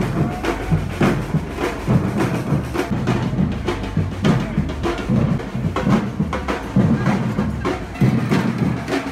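Street percussion band drumming a driving rhythm on large bass drums and snare drums, with dense, even strikes all the way through.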